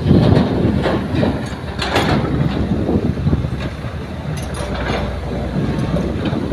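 A Kobelco excavator's diesel engine runs steadily under load while its bucket of soil and rocks drops into a dump truck's bed, with several sharp knocks in the first two seconds. The excavator then swings back empty.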